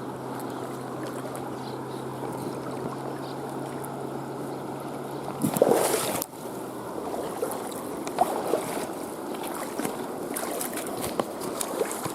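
River water rushing steadily, with a splash a little past halfway. A low steady hum stops shortly after the splash, and light clicks and taps follow near the end.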